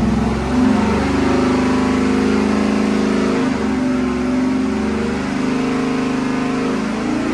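A carbureted 5.3-litre LS V8 running on an engine dyno with its carburetor freshly jetted richer, holding a fairly steady pitch with small shifts about half a second in and again a few seconds in.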